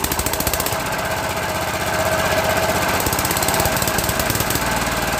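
Old Jiang Dong JD 180 single-cylinder horizontal diesel engine running, a steady rapid diesel knock from its exhaust; it gets a little louder about two seconds in.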